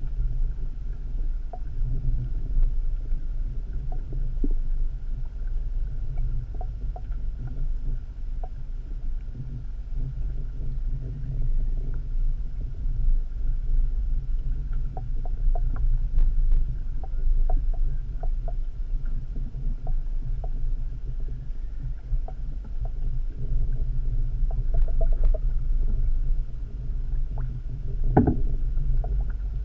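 Underwater ambience: a steady low rumble with scattered faint clicks and ticks, and one louder click near the end.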